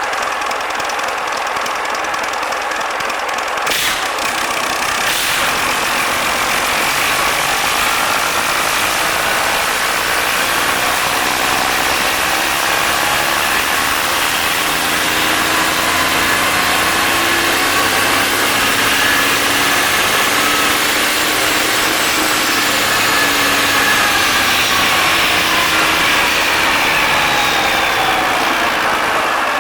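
Yanmar 6GH-ST six-cylinder marine diesel engine running steadily. About halfway through, its pitch climbs slowly as it is revved up, with a high whine rising with it, then eases back down near the end. Two sharp clicks sound near the start.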